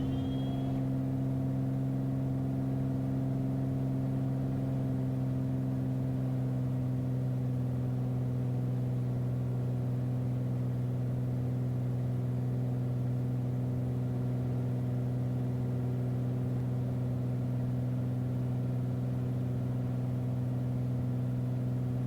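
Beechcraft Bonanza's piston engine and propeller droning steadily in the climb just after takeoff, an even low hum that holds the same pitch throughout.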